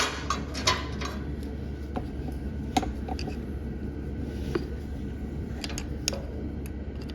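Scattered light metallic clicks and taps of small hand tools working on a garden tractor's ignition breaker points, about eight in all, the sharpest at the very start and near the three-second mark, over a steady low hum.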